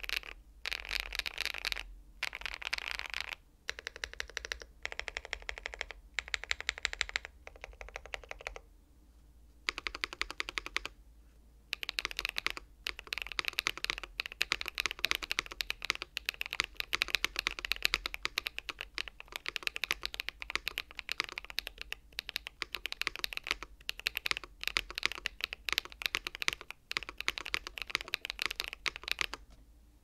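Typing on a compact 65% mechanical keyboard with tactile switches: fast, dense keystrokes. The typing comes in short runs with brief pauses for the first ten seconds or so, then runs almost without a break and stops just before the end.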